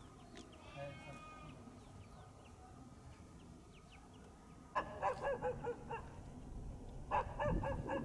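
Domestic fowl calling in two bursts of rapid, repeated calls, the first about five seconds in and the second near the end.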